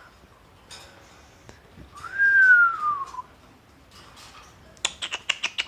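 Pet bird whistling once, a clear note that rises briefly and then slides down, followed near the end by a quick run of about eight sharp clicks.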